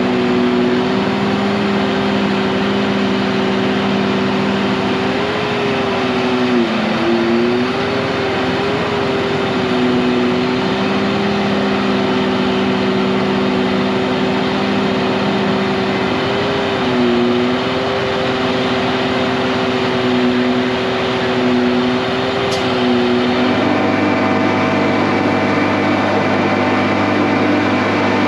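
A vehicle engine running steadily, its pitch dipping briefly a few times; about 23 seconds in the sound shifts to a different steady drone.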